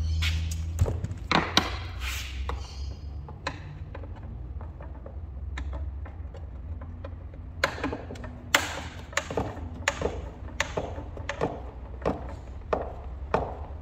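Irregular knocks, taps and clicks of hand tools and small metal parts as a backpack blower is being taken apart, in two spells, the first in the opening seconds and the second from about halfway on, over a steady low hum.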